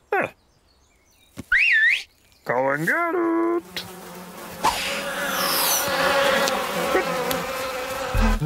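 Cartoon sound effect of a swarm of flies buzzing, starting a little over a third of the way in and carrying on to the end as the loudest sound. Before it come a few short cartoon whistles and a warbling sound over near silence.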